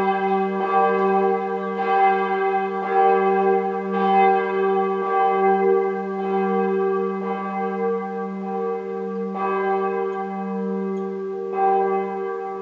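The third bell (Glocke III) of the Wiesenkirche in Soest, a church bell cast in 2002, swinging and struck by its clapper about once a second, its ring carrying on between strokes. The strokes grow weaker and farther apart toward the end, with a longer gap before the last one near the end.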